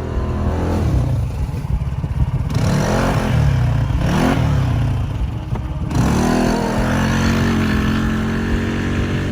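A vehicle engine revving, its pitch rising and falling several times, with the biggest swells about three, four and six seconds in.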